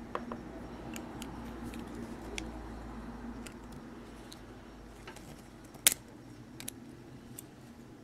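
Small clicks and taps of a VW Golf Mk4 door lock cylinder's metal and plastic parts being handled by fingers as the tailpiece and spring cover are taken off, with one sharper click about six seconds in.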